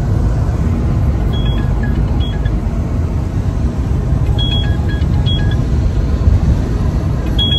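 Steady low rumble of a car's interior while riding, road and engine noise heard from the back seat. Brief high tones sound now and then over it.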